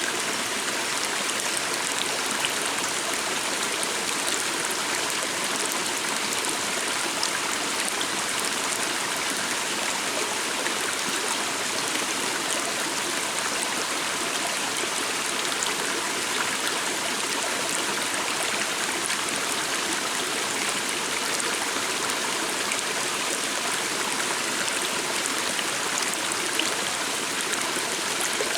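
Forest water stream flowing steadily, a continuous rushing and trickling of water.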